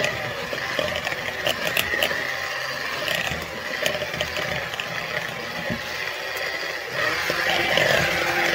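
Cordless battery-powered electric hand mixer running steadily, its beaters working a thick egg, cream cheese and vegetable mixture in a bowl with a few rattles. It gets louder about seven seconds in.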